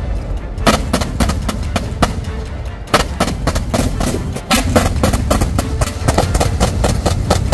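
A battery of towed twin-barrel anti-aircraft guns firing, many rapid shots overlapping at an irregular pace over a low rumble.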